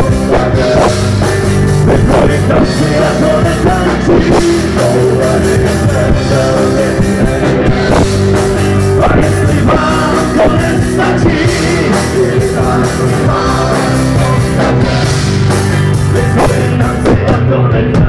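Live rock band playing loud through a PA: electric guitars and a drum kit.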